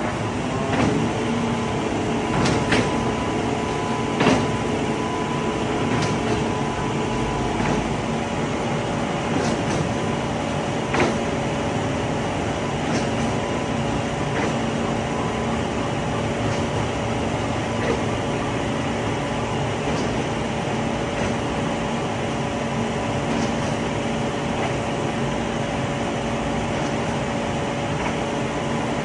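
Horyong PE700 moving-ladder truck running its lift as the platform travels up the extended 66 m ladder: a steady mechanical hum with a few held tones. Several sharp clacks come in the first ten seconds or so, the loudest about four seconds in.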